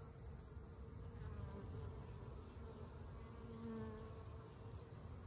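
Honeybees at a hive entrance buzzing, a faint steady hum that swells briefly about three and a half seconds in.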